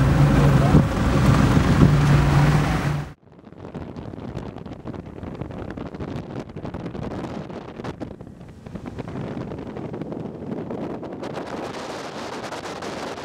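Motorboat engine running at speed, a steady low drone under the rush of wind on the microphone. About three seconds in the sound cuts abruptly to a quieter, gusting rush of wind and spray with the engine barely heard.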